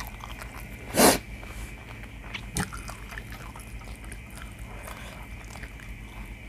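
One short, loud puff of breath about a second in, over a low steady room hum, with a faint click a little later.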